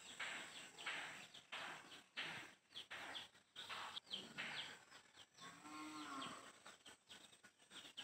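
Faint, repeated rustling of sugarcane leaves and brush. About six seconds in, a cow moos once, a short call that rises and then falls.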